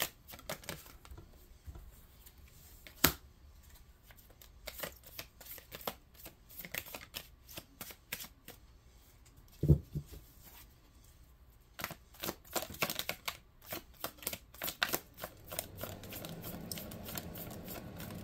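Tarot cards being shuffled by hand: many quick papery clicks come in runs. There is a sharp tap about three seconds in and a louder thump near ten seconds.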